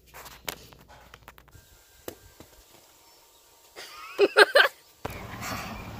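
A few light knocks, then a girl's short, loud, high-pitched squeal about four seconds in.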